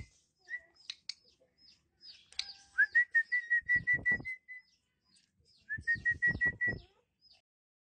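Male Asian pied starling singing: three bursts of rapid, repeated whistled notes mixed with clicks, with short pauses between them. The longest run comes in the middle.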